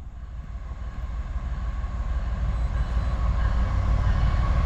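Approaching Norfolk Southern freight train led by a GE ET44AC diesel locomotive: a low rumble of engine and wheels that grows steadily louder as it nears.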